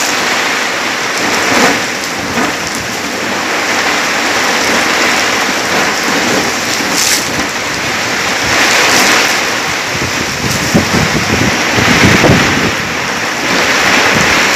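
Heavy rain pouring down in a storm, a dense hiss that swells and eases in waves several times.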